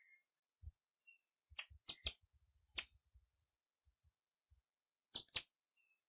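Yellow-bellied tanager giving short, high, thin call notes in small irregular groups: a faint note at the start, a few notes around two to three seconds in, and a quick pair near the end.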